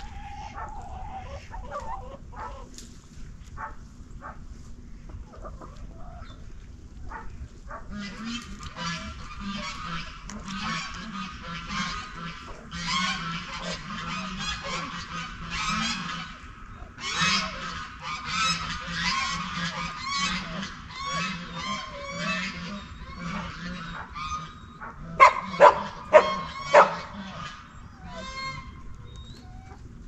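Farmyard fowl calling: a long stretch of rapid, busy calls from about a third of the way in, then four loud calls in quick succession near the end.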